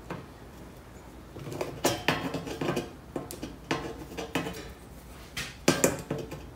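Hand pliers working the curved edge of a sheet-metal patch panel, bending a flange over a little at a time, giving irregular metallic clicks and light clanks as the jaws grip and the sheet flexes.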